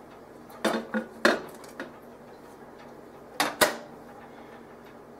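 A lidded Range Mate microwave grill pan knocking and clattering as it is set into a microwave oven, with three quick knocks about a second in. Then two sharp, loud knocks about three and a half seconds in as the microwave door is shut.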